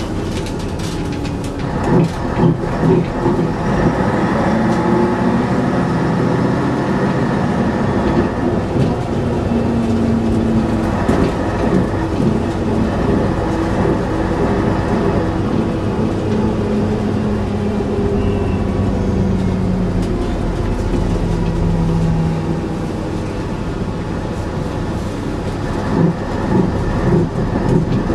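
Scania double-decker bus on the move, heard from inside the lower deck: engine and drivetrain running, with a note that steps up and down in pitch several times. The body and fittings rattle, most heavily about two seconds in and again near the end.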